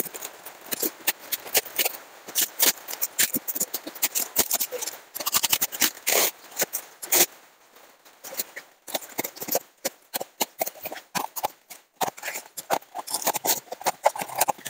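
Packing tape and cardboard being cut with a utility knife and torn off by hand: a quick, irregular run of crackling, ripping and scraping, with a short lull about eight seconds in.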